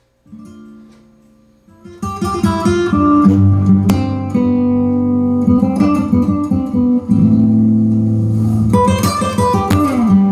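Guitar music from a CD playing through a Sony Genezi mini hi-fi system's speakers, coming in faintly at first and loud from about two seconds in.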